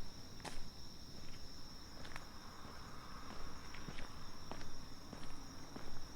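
A steady, high-pitched chorus of crickets at one unbroken pitch. Over it are the walker's footsteps, short sharp steps about one or two a second.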